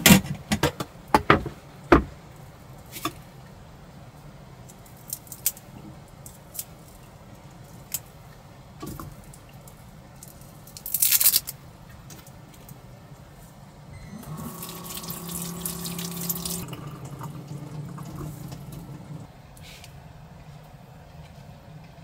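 Cooking preparation: a quick run of clicks and knocks in the first two seconds, a few more scattered later, and a short hiss about eleven seconds in. From about fourteen seconds water pours for a couple of seconds, then trails off.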